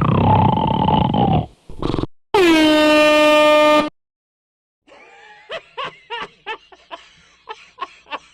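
Snoring, then a single loud air horn blast about two seconds in, held at one steady pitch for about a second and a half. After a brief silence comes a string of short, sharp vocal sounds.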